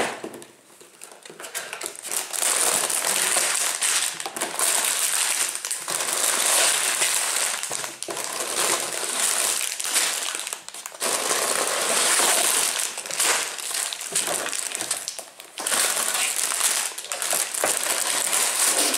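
Sealed plastic bags of Lego pieces crinkling and rustling as they are lifted out of a cardboard box, in spells of several seconds with short pauses between.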